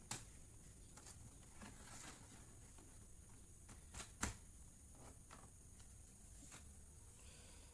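Near silence with a few scattered small clicks and taps, the loudest about four seconds in, from handling the laptop's parts during reassembly.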